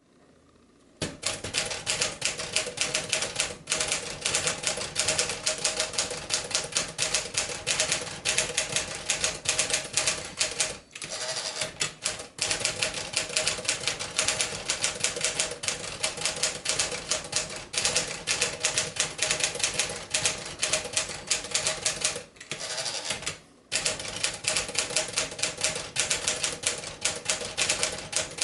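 1957 Smith-Corona Clipper manual portable typewriter being typed on: a fast, steady run of keystroke clacks. The typing breaks briefly twice, about 11 and 22 seconds in.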